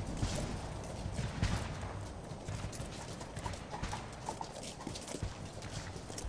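Horse hooves clopping on hard ground, an irregular run of sharp knocks.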